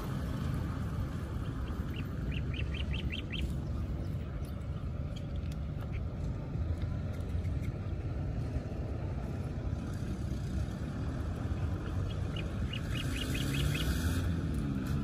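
A bird calls twice, each time a quick run of about seven short, evenly spaced high notes, over a steady low outdoor rumble.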